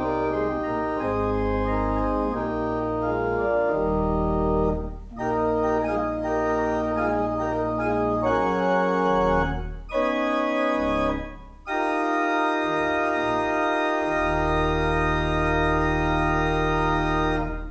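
Church organ playing sustained chords over deep pedal bass, with short breaks between phrases, then one long held final chord that is released and fades at the end.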